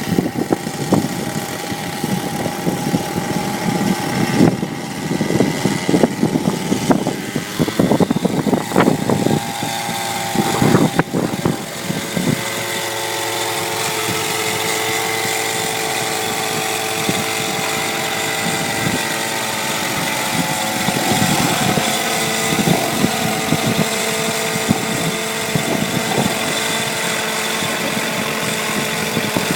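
Steadicopter unmanned helicopter running in flight, its engine and rotor giving a steady drone with several held tones. For about the first twelve seconds, strong wind gusts buffet the microphone with irregular rumbling; after that the drone runs evenly.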